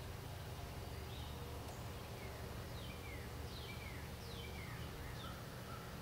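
Birds singing: a run of short whistled notes, each sliding down in pitch, repeated many times from about a second in, over a steady low rumble.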